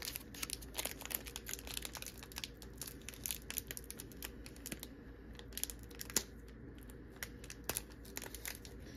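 Crinkly card packaging being handled, many small sharp crackles and clicks in quick, irregular succession over a faint steady hum.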